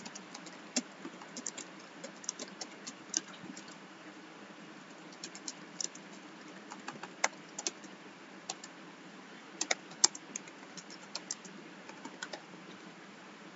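Typing on a computer keyboard: irregular keystroke clicks in short bursts with brief pauses, over a faint steady hiss.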